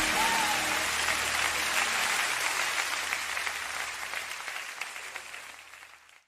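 Church congregation applauding, fading out steadily over several seconds and cutting off abruptly near the end.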